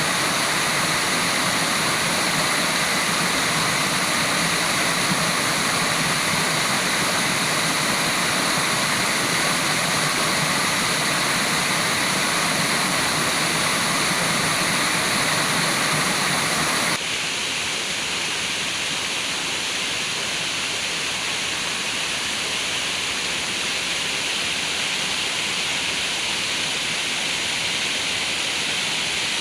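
Steady rush of water falling and flowing at a waterfall, an even noise with no breaks. More than halfway through it changes abruptly to a thinner, hissier rush.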